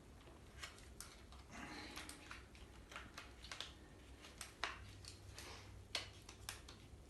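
Faint handling noise of a silicone camera case being stretched and worked onto a Canon 90D body: light rubbing, with scattered small clicks and taps several times over the few seconds.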